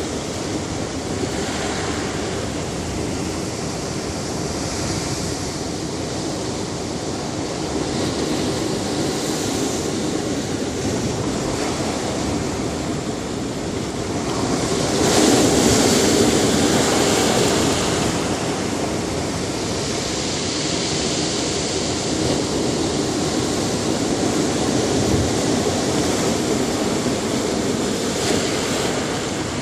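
Ocean surf washing onto a beach in a steady rush, with one louder wave breaking about halfway through.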